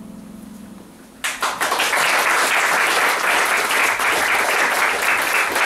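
The last low note of a string ensemble dies away, then an audience starts applauding about a second in and keeps clapping steadily.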